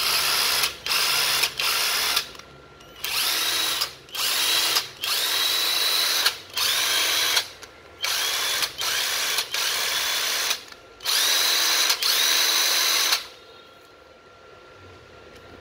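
Ryobi 14.4 V cordless drill's motor run in about a dozen short trigger pulls, each spinning up with a rising whine, with the direction switch just set to reverse. The runs stop about 13 seconds in.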